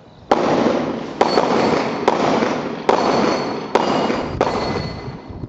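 Six gunshots in quick succession, a little under one a second, each a sharp report followed by a long fading rumble of echo.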